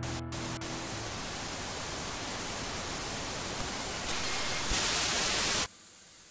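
Television static: a steady white-noise hiss. A low droning chord fades out in the first second; the hiss grows louder about five seconds in, then cuts off abruptly, leaving only faint hiss.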